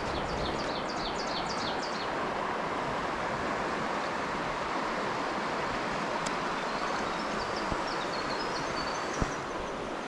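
Shallow rocky trout stream flowing through riffles: a steady rush of running water.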